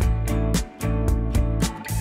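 Background music with a steady beat of about four strikes a second over held bass notes.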